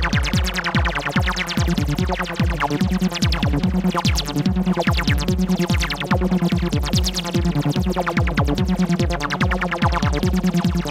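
Acid techno DJ mix played from vinyl: a steady kick drum beat with fast hi-hat ticking under a looping synthesizer line.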